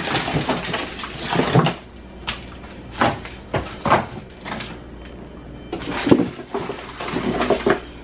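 Plastic-wrapped frozen packs of ground pork sausage being handled and set into plastic freezer baskets. There is plastic crinkling at first, then irregular hard knocks as the frozen packs hit the baskets.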